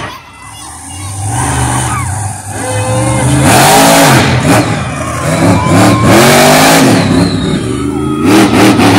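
Monster truck engine revving hard, its pitch climbing and dropping over and over as the truck accelerates across the dirt and over a mound. It starts quieter and gets loudest from about three and a half seconds in.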